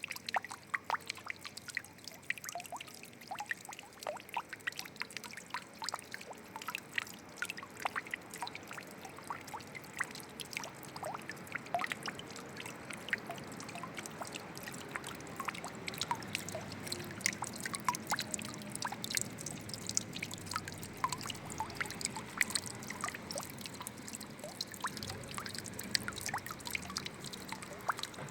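Water trickling and dripping: many small droplet plinks over a steady low wash of running water, which grows a little louder past the middle.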